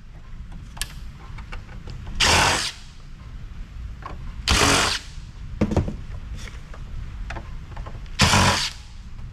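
Power drill/driver run in three short bursts of about half a second each, backing out screws from the amplifier's chassis, with small metallic clicks and taps between the bursts.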